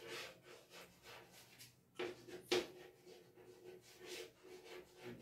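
Chalk scratching on a chalkboard as a word is written, in a run of short strokes, with two louder strokes about two seconds in.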